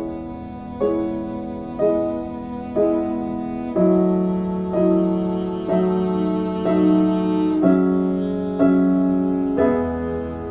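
Slow instrumental background music, a new note or chord struck about once a second over held tones.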